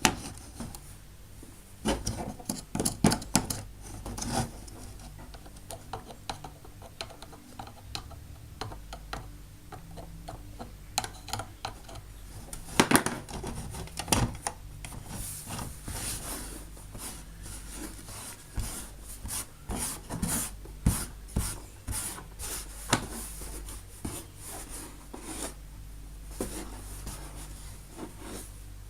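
Hands handling plastic Play-Doh toy tools: irregular light clicks, knocks and rubbing, as dough is worked and picked out of the tools' crevices.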